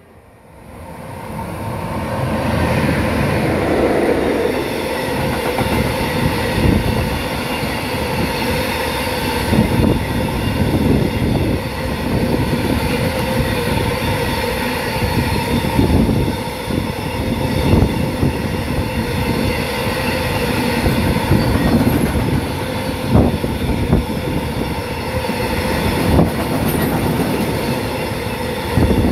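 Freight train of hopper wagons passing close by, a steady loud running of steel wheels on the rails that swells over the first two seconds, with scattered sharp clicks as wheels cross rail joints.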